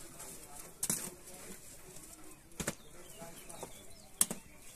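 Baked loaves of bread being handled and set into a woven wicker basket: three short, sharp knocks about a second in, midway and near the end, over soft rustling of cloth and wicker.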